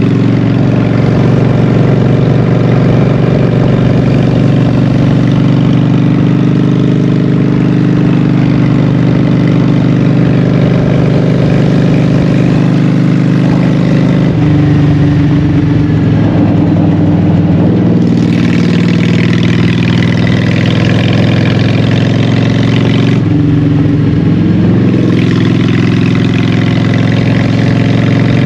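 Honda Shadow 750's V-twin engine running under way through Vance & Hines Short Shots exhaust pipes, a steady loud note that changes pitch about halfway through and again near the end. A hiss joins for stretches in the second half.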